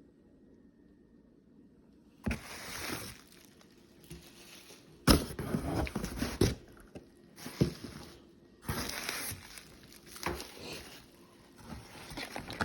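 Packaging being handled as a box is unpacked: irregular bursts of rustling with sharp clicks and knocks, starting about two seconds in.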